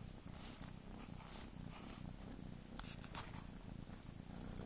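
A tabby-and-white cat purring steadily right at the microphone. There are a few soft rustles and two sharp clicks about three seconds in.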